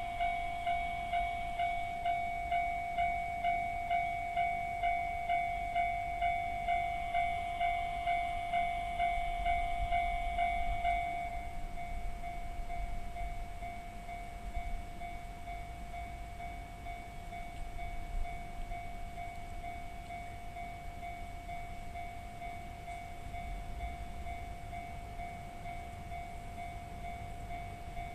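Japanese level-crossing warning bell of the JR East Tohoku type, ringing electronic dings about 1.7 times a second over a steady tone. The dings stop about eleven seconds in, leaving the steady tone and the low rumble of a passing train.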